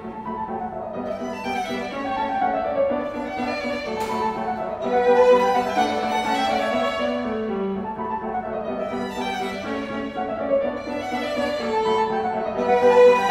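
Violin and grand piano playing a Classical-style sonata for violin and piano together, the violin carrying the melody over piano accompaniment.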